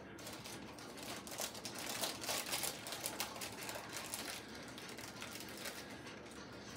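Plastic wrapper of a seasoned-seaweed snack pack crinkling and crackling as it is worked open by hand. The crackles come thick and fast, busiest in the middle.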